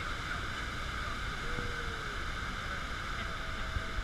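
Steady, even roar of a tour speedboat running on a river below a large waterfall: the boat's motor, rushing water and wind blend into one continuous noise.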